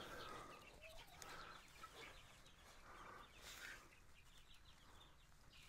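Faint clucking of chickens, otherwise near silence.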